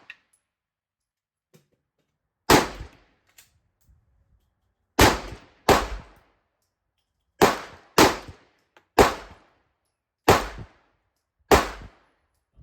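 Handgun fired eight times at an irregular pace, the shots about half a second to a second and a half apart, each a sharp crack with a short tail.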